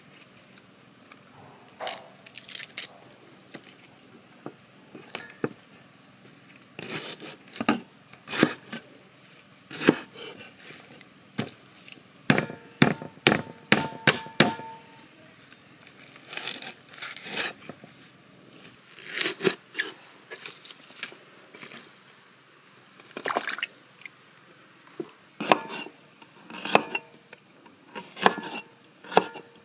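A heavy cleaver chopping lemongrass stalks and ginger on a wooden chopping block: sharp knocks in quick runs separated by pauses, a few blows leaving a short metallic ring from the blade.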